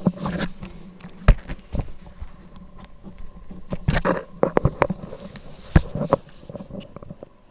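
Rough collie picking up and mouthing a hard dog biscuit, with irregular sharp clicks and taps of teeth on the biscuit.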